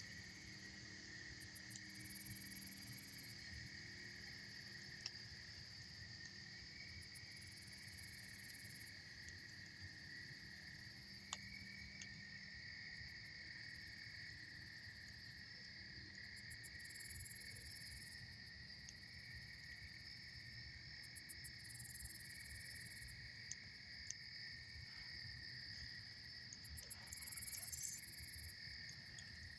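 Steady, shrill chorus of night insects, unbroken throughout, with a few faint sharp pops from a crackling campfire.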